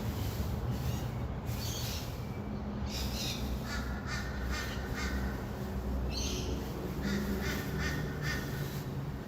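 Rainbow lorikeets giving repeated short, harsh screeching calls in clusters over a steady low rumble of distant city traffic.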